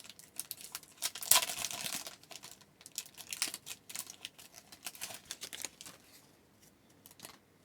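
A trading-card pack wrapper being torn open and crinkled, loudest about a second in, followed by light rustling and clicking as the cards are handled, fading out near the end.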